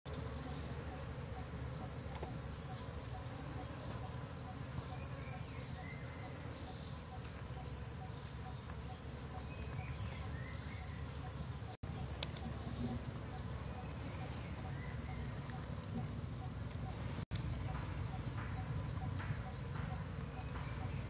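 Insects droning steadily at a high, even pitch, with a few short high chirps of birds in the first half. The sound cuts out for an instant twice.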